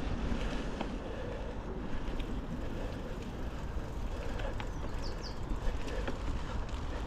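Norco Storm mountain bike rolling along a muddy trail: steady tyre and wind noise on the microphone with small rattles and clicks from the bike, and two brief high squeaks about five seconds in.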